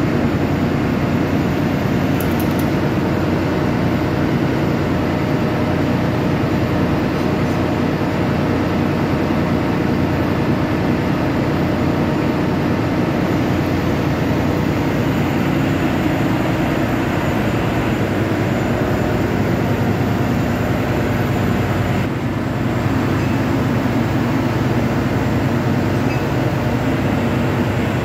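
Heavy machinery running steadily: a loud, constant drone with a low hum.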